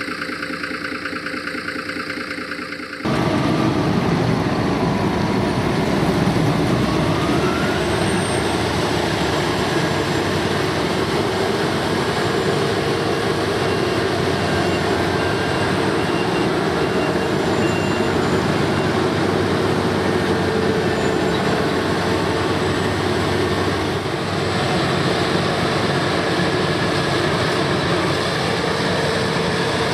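Claas Lexion 570 TerraTrac combine harvester running steadily under load, a loud mix of engine and machinery noise. About three seconds in, the sound changes abruptly from a steady engine hum to a louder, noisier mix, and it shifts slightly again near the end.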